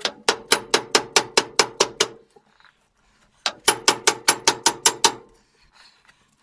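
Rapid blows from a nylon mallet on the spindle of a Meteor wood lathe's headstock, about six a second in two runs of about two seconds each with a short pause between them, with a ringing note under the blows. The spindle is being driven out of the headstock and is getting pretty tough to shift.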